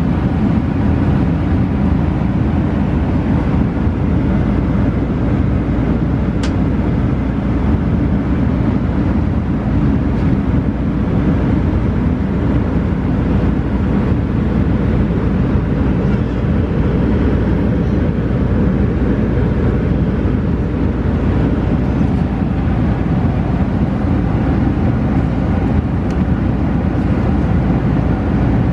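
Steady low rumble of a Boeing 767-300 airliner cabin in cruise flight: engine and airflow noise, even and unbroken.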